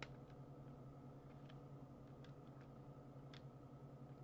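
Near silence: a low steady hum of room tone with a few faint, irregular clicks.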